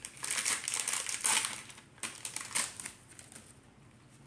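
Foil Pokémon booster pack wrapper crinkling as it is handled and pulled open, in a run of short bursts that die away after about three seconds.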